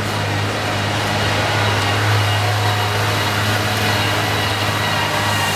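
Steady low machine hum with a few faint steady higher tones, unchanging throughout.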